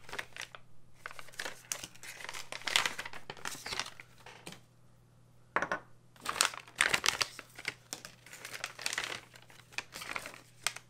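Plastic packaging of a replacement drone arm being handled and opened, crinkling in two spells with a short pause about halfway through.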